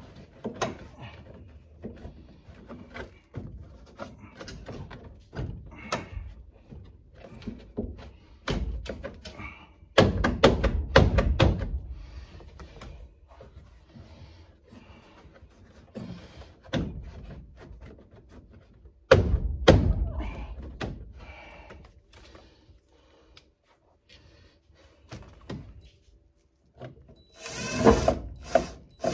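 Irregular knocks, clunks and clicks of hand work on a car's interior while carpet and seats are being fitted. There are louder, longer clatters about ten and about nineteen seconds in, and a short rushing burst near the end.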